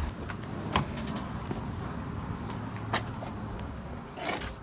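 Car door being opened from inside: a few sharp clicks of the handle and latch, and a short rustle near the end as someone climbs out.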